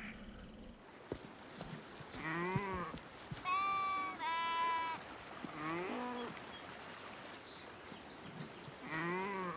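Sheep bleating about five times, some calls wavering and two higher, steadier calls in the middle.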